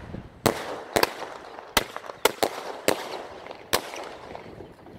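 Consumer firework cakes firing: about seven sharp bangs at uneven intervals, with crackle and hiss between them.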